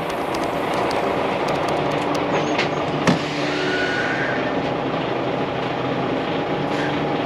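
Diesel lorry engines running steadily at low speed as two trucks pass close alongside each other, with one sharp click about three seconds in.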